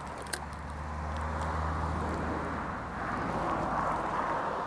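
Small stream running with a steady rushing noise, with the low hum of a distant engine for the first couple of seconds and one sharp click just after the start.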